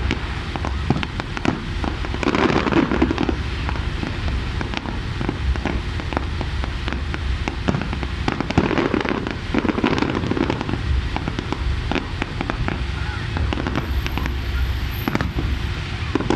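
Fireworks display going off: many sharp pops and crackles in rapid succession, with no pause.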